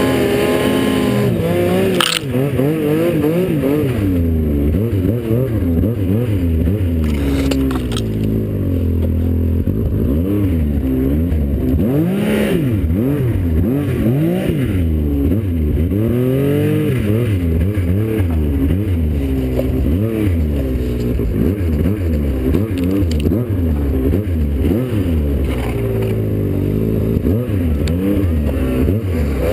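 Snowmobile engine revving up and down over and over as the sled works through deep snow, with a few sharp knocks.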